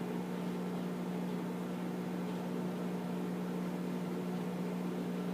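Microwave oven running with a steady hum as it heats the squash.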